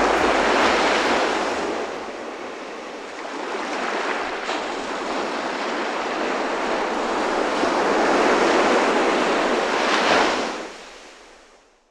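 Ocean surf breaking and washing up a beach, rising and falling in slow swells, then fading out near the end.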